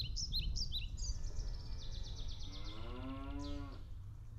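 A cow moos once, a little over a second long, rising slightly and then falling, about two and a half seconds in. Before it, birds chirp rapidly, and low wind rumble on the microphone runs underneath.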